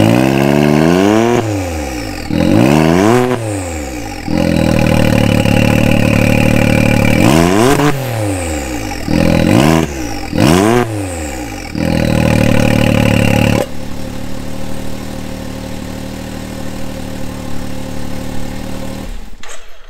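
Can-Am Maverick X3 MAX's turbocharged three-cylinder engine blipped through an EVO Shocker electric cutout exhaust with the flap open: about six quick revs that rise and fall, with a loud idle between them. About two-thirds of the way in, the sound drops suddenly to a much quieter steady idle as the electric cutout flap closes.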